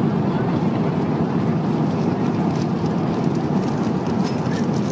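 Steady cabin noise of an Airbus A350-900 airliner in flight, a dense low rumble. From about halfway, faint light clicks from a plastic water cup being handled on the meal tray.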